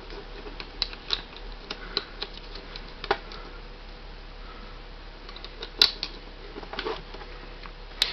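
Small plastic clicks and taps from a Transformers action figure and its attachments being handled, with sharper clicks about 3 seconds in and near 6 seconds.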